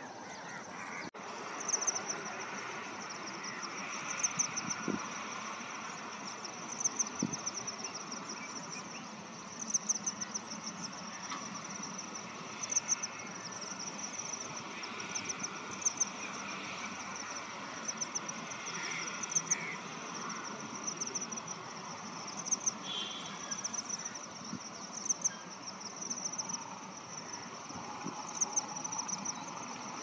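Outdoor wildlife ambience: a steady high-pitched trill that swells in short pulses about once a second, with scattered fainter calls underneath.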